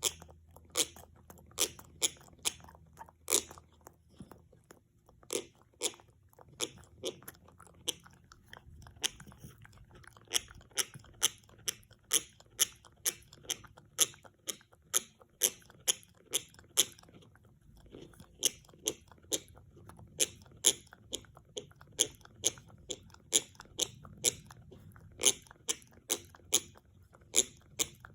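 French bulldog gnawing an antler chew: its teeth grind and crunch on the hard antler in sharp, irregular crunches, one or two a second, with a brief pause a little past halfway.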